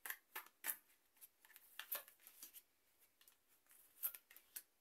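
Tarot cards being handled: the deck shuffled and a card dealt onto a wooden table, heard as a scatter of faint, short, crisp snaps of card stock.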